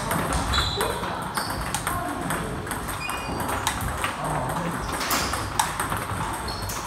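Table tennis balls clicking off bats and tables at several tables at once: an irregular stream of overlapping sharp clicks.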